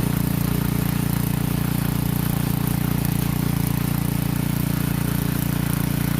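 Small rototiller's 5-horsepower Briggs & Stratton single-cylinder engine running at a steady speed while tilling the garden.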